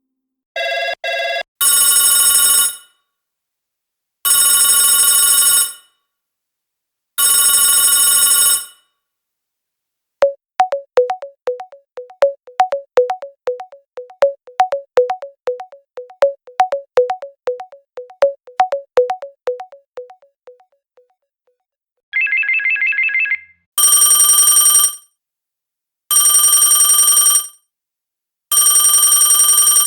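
A run of telephone ringtone sound effects: electronic ring bursts of about a second and a half, repeating every two to three seconds, then a quick melodic ringtone of short notes for about ten seconds, a brief high trill, and three more ring bursts near the end.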